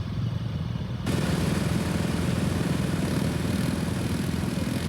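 ATV engine running. About a second in it gets louder and a rushing hiss comes in over it, which then holds steady.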